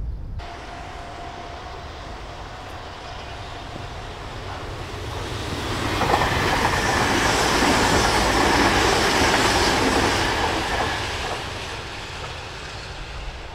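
Tobu N100-series electric train passing on the line: its running noise builds, is loudest around the middle as it goes by, then fades as it moves away.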